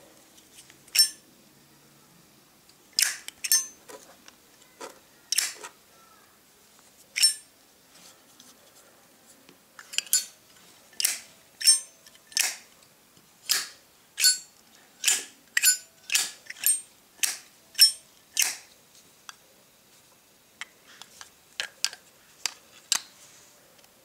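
Zippo windproof lighter lids flipped open and snapped shut over and over: a long series of sharp metallic clicks, some coming in quick pairs, with fainter clicks near the end.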